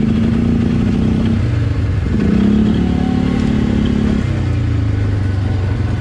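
Polaris RZR side-by-side's engine running along a trail: it eases off about a second and a half in, revs back up a moment later, then settles to a lower steady pitch about four seconds in.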